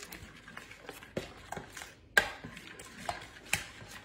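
Stirring canned pumpkin into thick instant vanilla pudding in a bowl, the utensil knocking against the bowl now and then, with the sharpest clack about two seconds in.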